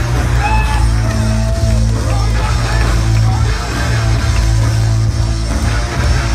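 Loud rock music with guitar and a heavy, steady bass line.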